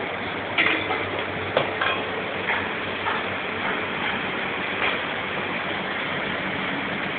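Commercial kitchen din: a steady machine hum with a few sharp clinks and clatters of kitchenware, the two loudest in the first two seconds.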